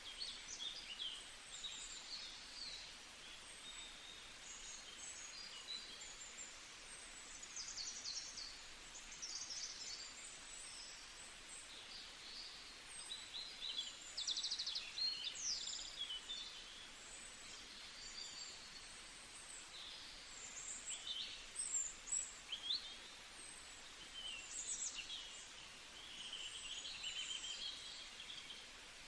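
A chorus of several small songbirds singing and chirping over a faint steady outdoor hiss, with overlapping short notes, trills and rapid buzzy phrases, busiest about midway and again near the two-thirds mark.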